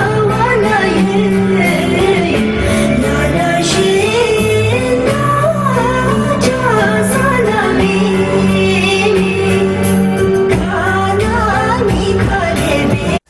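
Background music: a song with a singing voice wavering over steady accompaniment and a beat. It breaks off abruptly for a moment at the very end.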